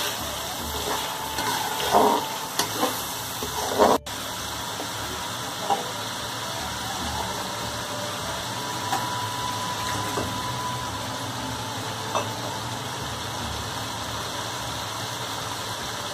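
Chicken pieces frying in oil in an aluminium pan, a steady sizzle, while a metal slotted spatula knocks and scrapes against the pan a few times in the first four seconds. After that the sizzle carries on with only a few light taps.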